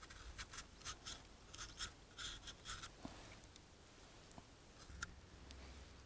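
A knife blade scraping the skin off a lotus root in a quick run of short strokes, about four a second, for roughly three seconds, then only a few faint clicks.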